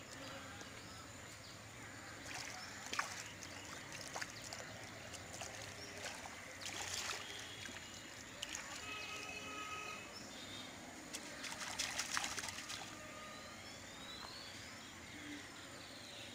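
Water trickling and sloshing as a cast net is drawn out of a pond by hand, with a few louder splashes.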